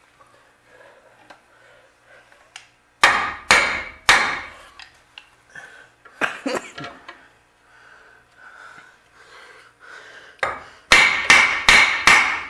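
Hammer blows on metal, each with a short ring: three strikes about three seconds in, a few lighter knocks a little later, then a quick run of about five near the end, all part of knocking the trailing arm into its mount.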